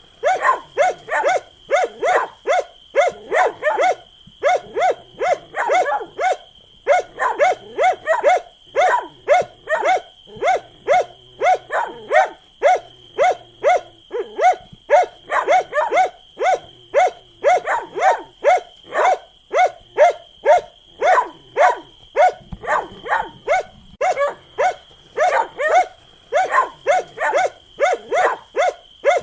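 A dog barking over and over in fast runs of short, sharp barks, about two to three a second, broken by brief pauses.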